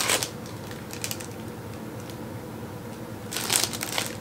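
Plastic packaging crinkling in bursts as a wrapped item is handled, after a brief rustle at the start and near-quiet room tone in between.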